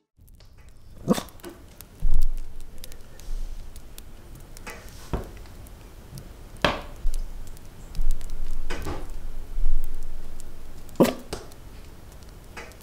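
A small dog resting in its bed makes a handful of short sounds, about six spread over several seconds, over a low steady rumble that swells a few times.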